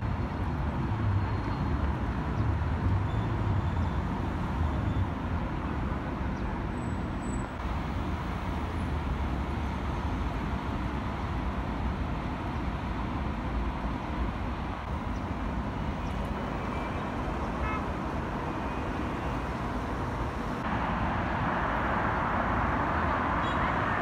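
Steady road traffic noise from passing vehicles, with a low rumble. The sound changes abruptly twice, about seven seconds in and again near the end, where it grows a little louder.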